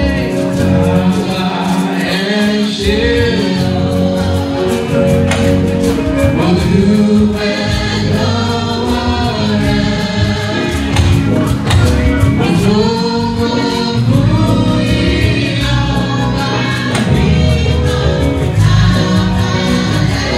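Live gospel music: a male lead singer with a women's choir singing behind him, over held instrumental tones and a steady beat.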